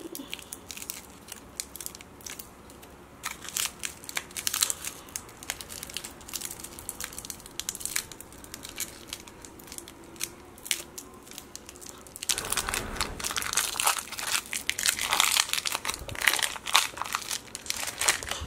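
Plastic lollipop wrapper crinkling as fingers twist and peel it off the candy: scattered crackles at first, then denser, louder crinkling over the last six seconds or so.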